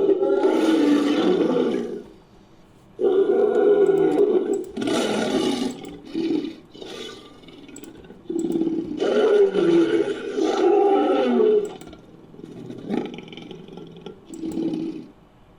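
Designed sound effect of the extinct sabre-toothed cat Barbourofelis fricki, pieced together from lion, Smilodon and other big-cat roar recordings: several long, loud roars with shorter growls between them and near the end.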